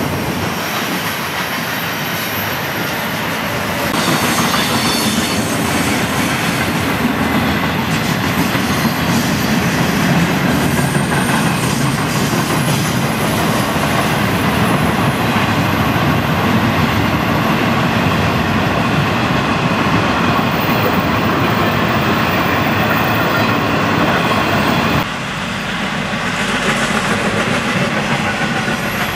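Florida East Coast Railway intermodal freight train rolling past, its double-stack container well cars making a steady noise of steel wheels on the rails. The sound gets louder about four seconds in and drops abruptly near the end.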